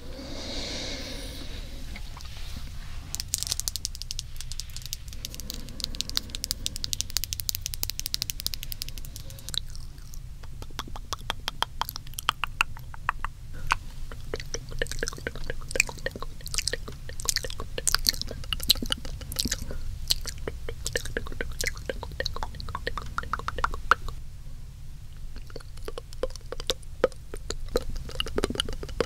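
Close-miked wet mouth sounds: rapid, dense wet clicks and smacks layered over one another, with brief lulls.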